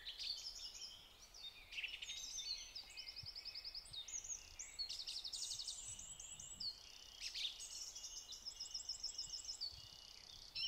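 Faint birdsong ambience: several small birds chirping and singing, with fast trills of rapidly repeated notes.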